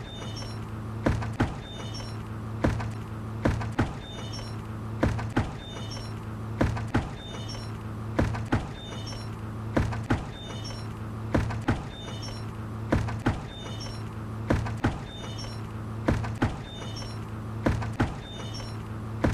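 A bucket creaking and knocking in a regular repeating pattern, a pair of short knocks about every second and a half, over a steady low hum.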